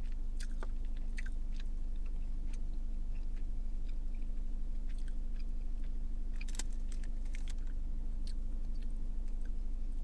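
A person chewing a mouthful of saucy chicken wing close to the microphone, with scattered short wet clicks and smacks, the strongest about half a second in and again around six and a half seconds in. A steady low hum runs underneath.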